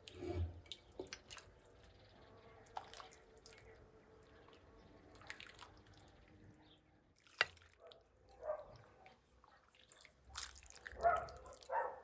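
Soup being ladled from a cast-iron cauldron into a clay bowl: broth splashing and dripping from a metal ladle, with a few sharp clicks.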